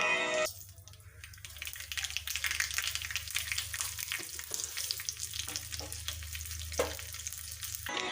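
Food frying in hot oil in a pan, a steady crackling sizzle that builds over the first seconds, with a few light clinks of a stirring spoon and a low hum beneath.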